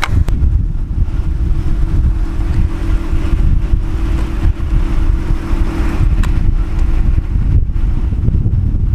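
Wind buffeting the microphone: a loud, choppy low rumble, with a steady low hum underneath.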